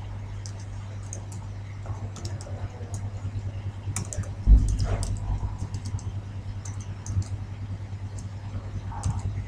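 Typing on a computer keyboard, a run of quick key clicks as repeated characters and letters are entered, over a steady low hum. A single louder low thump comes about halfway through.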